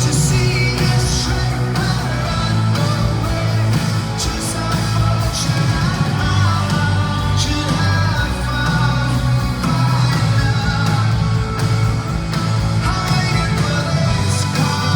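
Live rock band playing a song: electric guitars, bass and drums with cymbal crashes, and singing over the top.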